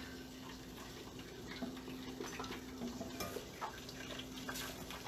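Faint stovetop simmering under a low steady hum, with a few small clinks of cookware as a metal splatter-guard lid is lifted off the pot near the end.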